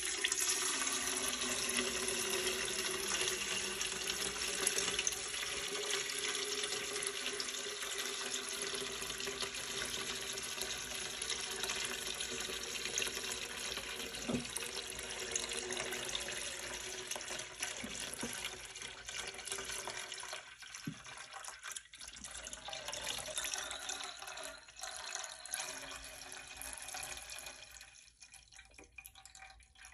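Molten candle wax running from a wax melter's ball-valve spout into an aluminium pouring pitcher: a steady splashing pour like a running tap, weakening in the last several seconds and dying away near the end.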